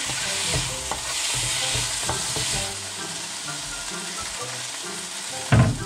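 Sausage slices and kimchi sizzling in a non-stick frying pan, stirred and scraped with a wooden spatula. There is a loud knock near the end.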